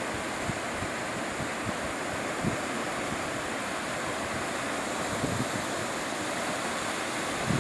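Muddy floodwater in a swollen river rushing and churning in turbulent eddies, a steady rushing noise, with a little wind buffeting on the microphone.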